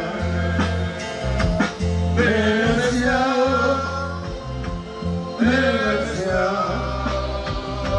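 A hymn being sung with instrumental accompaniment, voices carrying the melody over a heavy, steadily changing bass line.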